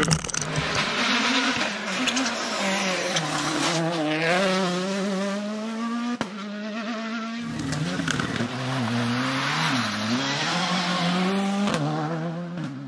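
Rally cars' turbocharged four-cylinder engines at full attack, revving up and dropping back through quick gear changes as they pass one after another. It opens with a loud burst of snow thrown against the camera.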